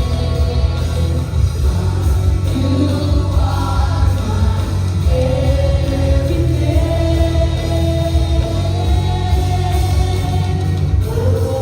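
Worship band and singers performing a contemporary Christian worship song: sustained sung notes over a strong, steady bass.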